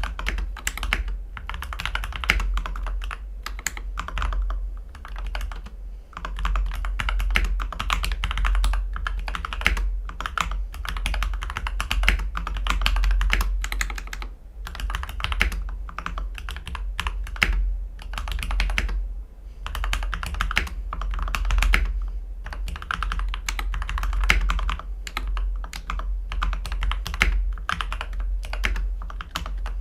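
Mechanical keyboard typing at a steady pace with a few brief pauses: Gateron Ink v2 Black linear switches, lubed and filmed, on an aluminium plate in a board with tape and PE foam mods. A steady low hum runs underneath.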